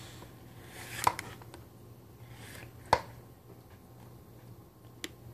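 Spoon stirring batter in a plastic mixing bowl, with a short swish before each of two sharp knocks against the bowl, about a second in and near three seconds, and a fainter tap near the end.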